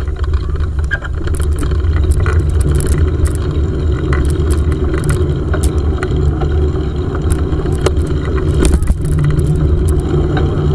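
Bicycle riding over paving, picked up by a handlebar-mounted camera: a steady heavy rumble of wind and road noise on the microphone, with frequent small clicks and rattles from the bike.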